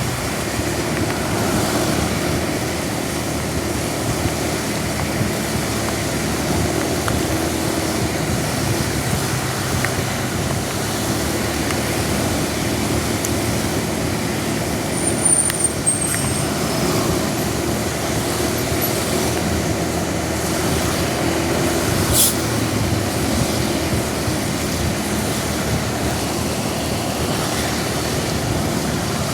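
Steady roadside traffic noise in heavy rain: vehicle engines running under an even hiss of rain and wet road. A brief high squeak comes about halfway through, and a single sharp click about seven seconds before the end.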